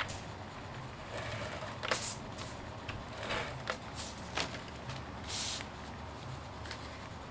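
Handling and adhesive sounds at a craft table: an ATG tape gun running tape onto a card panel, then card stock laid on a card base and pressed down, giving a few light clicks and short paper rustles.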